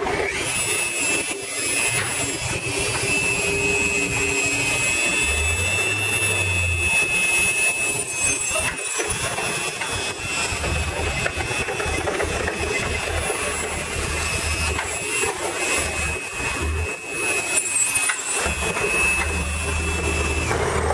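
Rupes Bigfoot 21 mm random-orbital (dual-action) polisher running at speed setting 4.5 on car paint, a steady high whine that starts just after the beginning and cuts off near the end. This is the finishing polish step, taking out the last holograms left by the rotary.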